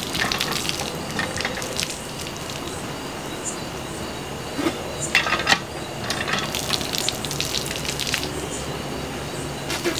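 Water from a hand pump splashing over cupped hands and onto the ground, in several short gushes and splashes.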